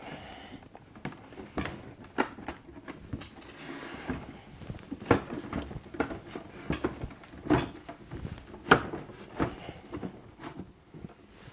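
The rear plastic case of an Apple Macintosh Classic being worked loose and pulled off the front bezel: irregular clicks and knocks of hard plastic, the loudest about nine seconds in.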